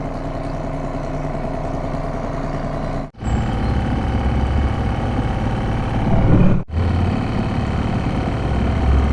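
British Seagull two-stroke outboard motor running steadily, pushing a small boat along, with two brief dropouts in the sound, after which it comes back a little louder and deeper.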